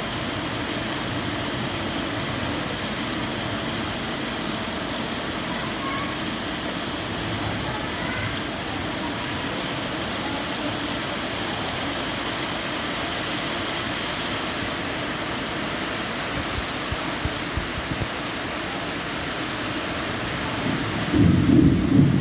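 Steady rain falling on leaves, an even patter all through. About a second before the end, a louder low rumble sets in.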